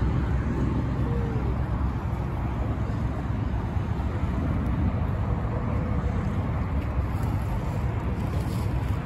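Steady low outdoor rumble: an even noisy haze strongest in the bass, with no distinct events.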